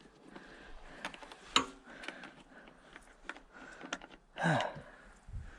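Faint scattered clicks and taps of hands working on a small generator's engine parts, with one sharper click about a second and a half in and a short grunt near the end.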